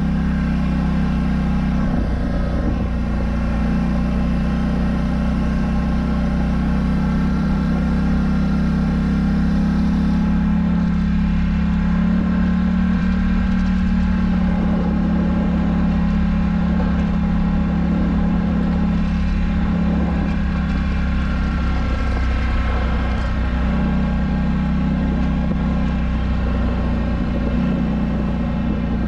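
Polaris Scrambler 1000 ATV engine running at a steady cruising speed under way, a constant drone that hardly changes in pitch.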